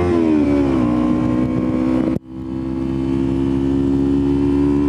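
Kawasaki Ninja 300 parallel-twin engine running under the rider while cruising. The engine note falls during the first second as the revs drop, then holds steady. The sound cuts out sharply for a moment about two seconds in.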